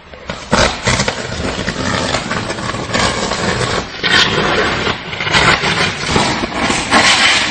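Dense, continuous crackling and snapping of an electrical short circuit arcing on a train, growing louder in the second half.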